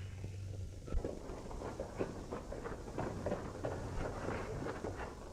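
Faint, irregular hoofbeats of horses moving at a walk, a few knocks a second, over the low hum of an old film soundtrack.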